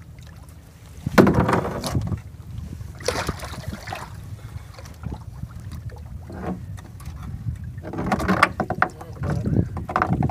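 Several bursts of splashing and clatter against a plastic kayak hull as a hooked catfish is handled alongside, over a steady low rumble of wind on the microphone.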